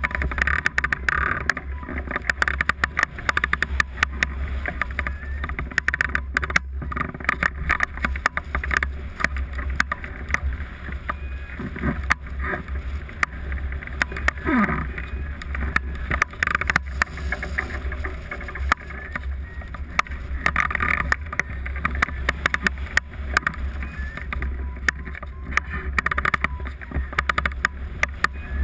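Airflow rushing and buffeting over the microphone of a camera mounted on a hang glider in flight. It makes a steady low rumble with swelling gusts and frequent sharp clicks.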